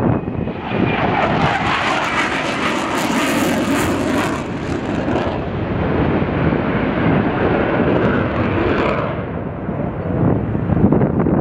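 Jet noise from the Su-27UB1M's two AL-31F afterburning turbofans as the fighter manoeuvres overhead. It is loud throughout, with a hissing high end strongest from about one to five seconds in, and it eases off a little after about nine seconds.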